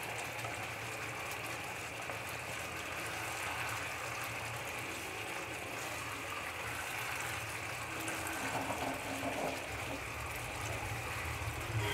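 Thick Manchurian gravy simmering in a frying pan, a steady bubbling, while a wooden spatula stirs the sauce and the vegetable balls through it.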